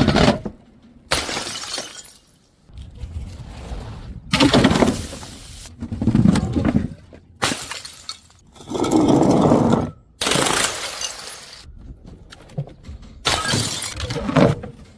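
Glass bottles thrown down and shattering one after another, each a sharp crash followed by the rattle of scattering shards, about eight in all.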